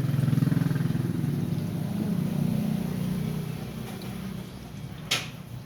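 A motor vehicle's engine passing by: a low engine drone that swells up, then slowly fades over about four seconds. A sharp click comes near the end.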